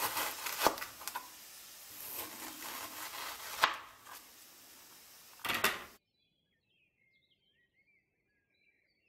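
Knife sawing through a partly frozen chicken döner roll on a cutting board, with several sharp knocks of the blade on the board. The sound cuts off about six seconds in, leaving near silence with a few faint chirps.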